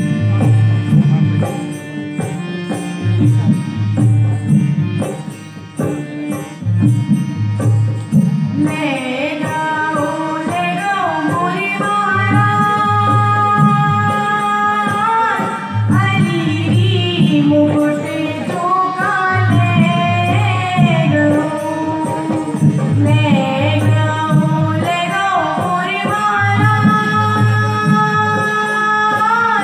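Bundeli kajri folk song performed live: a harmonium drone and a dholak rhythm play alone at first, then a woman's voice comes in about nine seconds in, singing long held and gliding notes over the steady drum beat.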